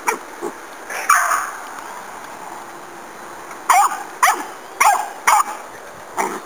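A puppy barking at a pig in short, high yips: three in the first second and a half, then after a pause five more in quick succession.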